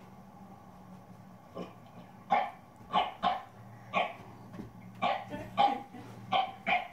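A dog barking sharply and repeatedly, about nine short barks in quick succession that start a little over two seconds in.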